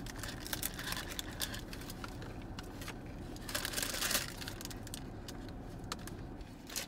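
A crunchy hard-shell taco being bitten and chewed close to the microphone, with many small sharp crackles. Its paper wrapper crinkles in bursts about two and a half and four seconds in.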